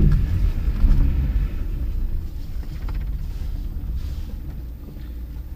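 Car rumble heard from inside the cabin as it rolls slowly into a parking spot, getting quieter as it slows down.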